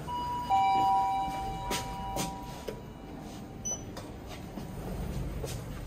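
Lift arrival chime: a higher note, then a lower one about half a second later, ringing and fading over a few seconds, followed by two sharp clicks and a brief high beep.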